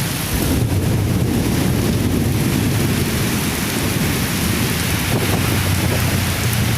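Heavy tropical downpour hissing steadily, with strong wind buffeting the microphone as a continuous deep rumble underneath.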